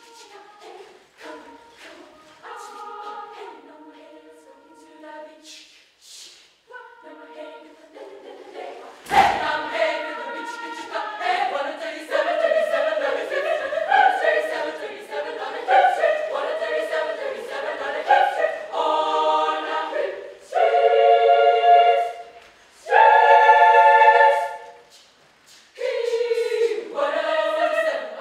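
Children's choir singing unaccompanied: soft, sparse phrases for the first nine seconds, then a sudden loud full entry marked by a single thump, followed by loud held chords and a brief break shortly before the end.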